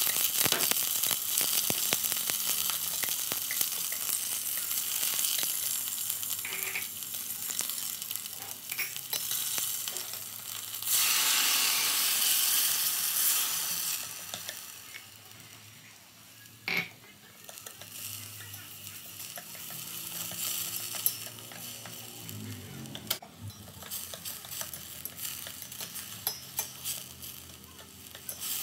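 Lemongrass and marinated beef sizzling in hot oil in a stainless steel pot while being stirred with chopsticks. The sizzle swells loudly for a couple of seconds about eleven seconds in as the beef and its marinade go into the hot oil, then settles to a softer sizzle with a few sharp knocks of the chopsticks on the pot.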